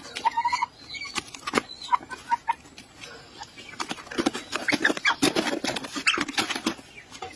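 An animal's short squeaky calls in the first couple of seconds, then a run of quick taps and clicks.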